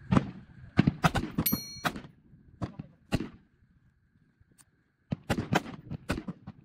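Rifle shots on an outdoor firing range, about a dozen sharp cracks at an uneven pace with a short lull in the middle. One shot about one and a half seconds in is followed by a high ringing tone.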